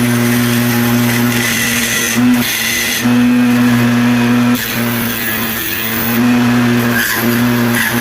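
A 24 V DC mini wood lathe's motor running with a steady hum and a broad scraping hiss over it. The hum steps louder and softer every second or two, typical of a cutting tool working the spinning wood.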